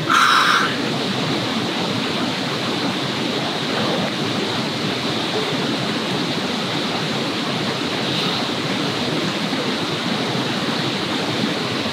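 A river rushing steadily, a full, even roar of fast-flowing water.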